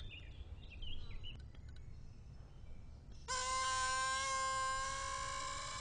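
Faint bird chirps over quiet outdoor background. About three seconds in, a steady set of sustained tones starts abruptly and becomes the loudest sound.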